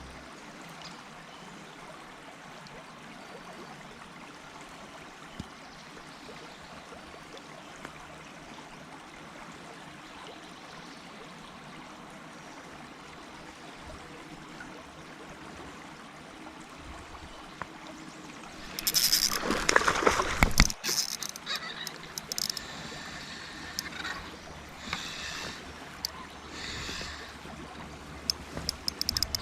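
River water flowing with a steady trickling hiss. About two-thirds of the way in comes a loud stretch of splashing lasting around two seconds, followed by scattered lighter splashes.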